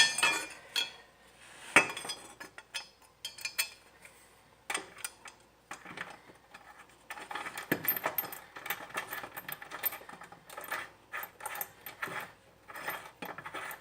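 Metal tools and parts clinking and rattling as they are handled, with scattered clicks and a sharper knock about two seconds in, and denser rattling in the second half.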